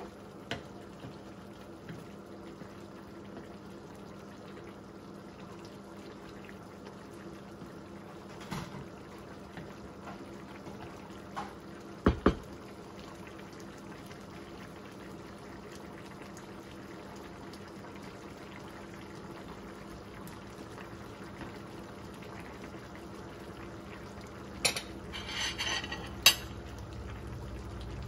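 Chicken liver adobo simmering in a frying pan, a steady bubbling in the sauce, with a wooden spatula stirring and knocking against the pan now and then. There is a sharp double knock about twelve seconds in, and a brief metal clinking a few seconds before the end as a ladle comes into use.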